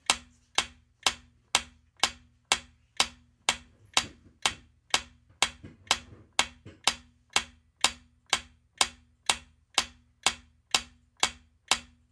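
Clock-style ticking sound effect for a quiz countdown timer: sharp, even ticks at about two a second.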